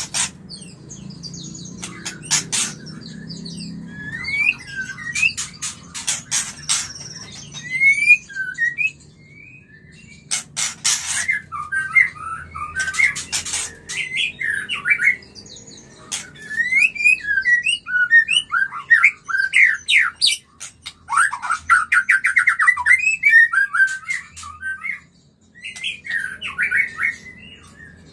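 White-rumped shama (murai batu) singing a varied string of short whistles, slurred glides and chattering notes, with a fast run of repeated notes about two-thirds of the way through. Short harsh noises break in between phrases several times in the first half. It is the song of a shama in breeding condition, its mating call.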